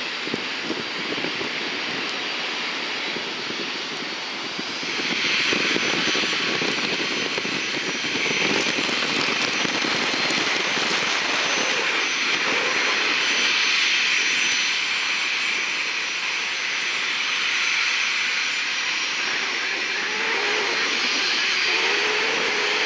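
Airplane engines running with a steady rushing noise and a faint high whine, growing louder about five seconds in.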